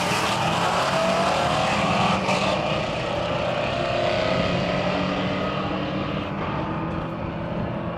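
Pontiac Firebird Formula's V8 at full throttle on nitrous during a quarter-mile drag pass, its note climbing in pitch and slowly fading as the car pulls away down the strip.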